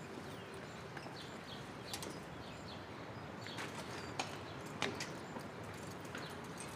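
Quiet outdoor background with faint bird chirps, and a few light clicks and creaks from bicycles being wheeled through a doorway.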